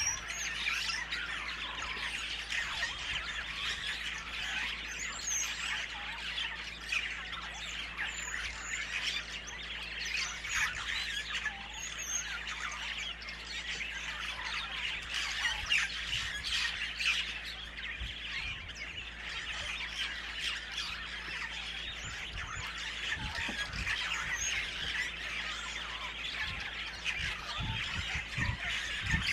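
Dense chorus of many wild birds calling and squawking without a break, with a few low thumps near the end.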